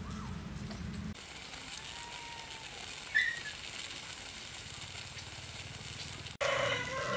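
Quiet outdoor ambience around an open fire, with a few faint bird whistles and a short chirp midway. A low rumble stops about a second in, and a louder, fuller sound starts near the end.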